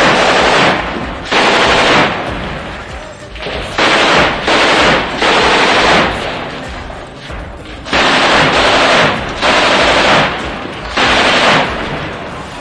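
Machine gun firing about eight short bursts of automatic fire, each about half a second to a second long, with a pause of a second or two between them. The bursts ring on in echo inside the building.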